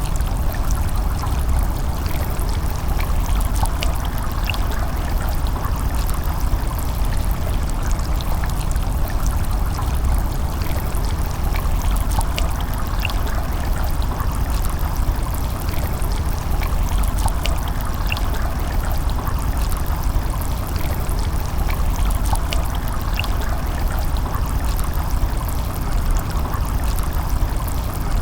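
A river flowing steadily, a continuous even rush of water with small scattered splashes and trickles.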